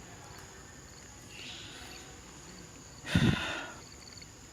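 Steady insect chirring with small repeated chirps. There is a brief loud noise a little after three seconds in.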